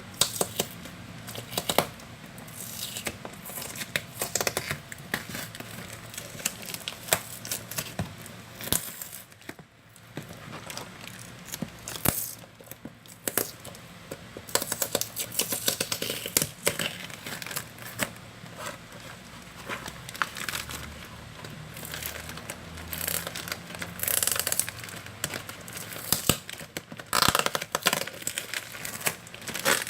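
Fishing-lure packaging being handled and opened: irregular crinkling and rustling, with many sharp clicks and scrapes.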